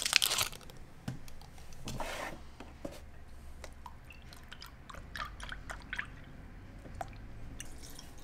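Foil wrapper of a stock cube crinkling as it is peeled open: loudest right at the start and again about two seconds in. Then quieter handling clicks and a faint trickle as soy milk is poured from a carton into a plastic measuring jug.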